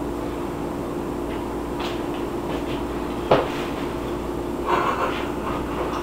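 Microwave oven running with a steady hum, a .22 cartridge inside and something burning in the cavity. A few faint crackles, and one sharp snap about three seconds in.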